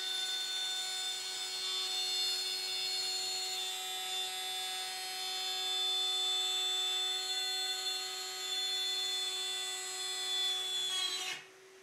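Table-mounted electric router with a straight-cut bit running and cutting a slot in a hardwood board fed along the fence: a steady, high-pitched machine whine with cutting noise. It stops abruptly near the end.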